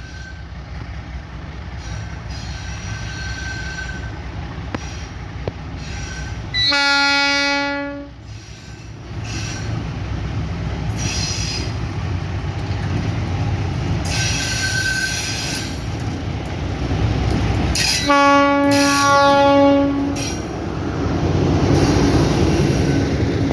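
Freight train horn blowing: one blast about seven seconds in, then two more close together near eighteen to twenty seconds in. The train's steady rumble runs underneath and grows louder toward the end.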